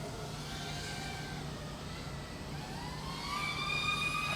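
5-inch FPV quadcopter's motors and propellers whining in flight. The pitch slides down over the first second and climbs again from about three seconds in as the throttle changes.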